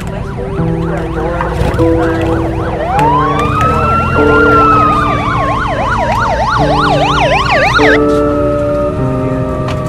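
Emergency vehicle sirens over slow background music with held chords. About three seconds in, a slow wail rises and a rapid yelping siren joins it. The yelp cuts off about eight seconds in, leaving a lower wail over the music.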